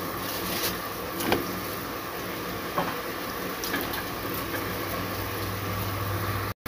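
Steady hiss of a pot of water with pork bones heating on the stove burner for blanching, not yet at a boil, with a few faint ticks. A low hum comes in about five seconds in.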